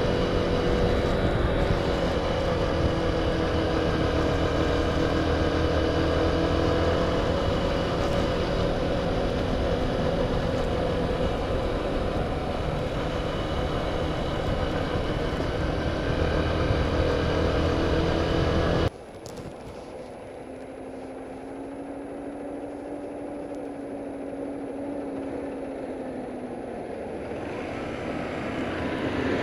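Yamaha YBR single-cylinder motorcycle engine running steadily under way, with wind and road noise on the camera microphone. It cuts off abruptly about two-thirds of the way through to a much quieter engine note, and the sound grows louder near the end as an oncoming tractor approaches.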